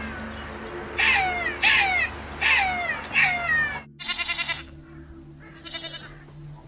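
A black-backed jackal calling in a run of short falling yelps, about four in quick succession. After an abrupt cut, a goat bleats twice with a wavering bleat.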